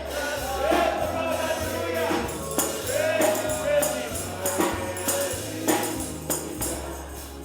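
Live gospel praise music: a steady bass line and percussion under singing voices, growing quieter toward the end.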